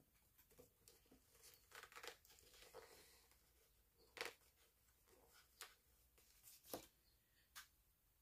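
Faint rustling and crinkling of a paper sticker sheet being handled, with scattered light clicks, the sharpest about four seconds in and again near seven seconds.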